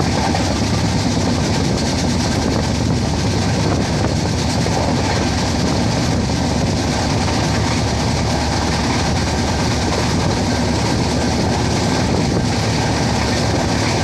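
Indian Railways passenger coach running along the track, a steady noise of wheels on rails heard through the open coach window.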